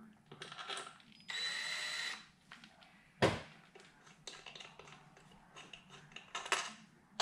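Cordless drill-driver running a screw into the motorcycle's engine cover: one steady whine of under a second, about a second in. A sharp clack follows a second later, with light metallic clicks of hand work on the cover.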